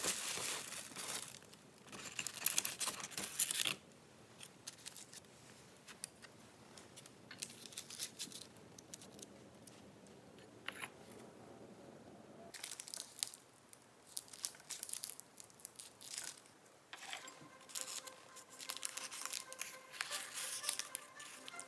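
Crinkling and rustling of a plastic bag and paper pastry box being handled, in several bouts. Near the end comes the crinkle of a pleated paper liner being peeled off an egg tart.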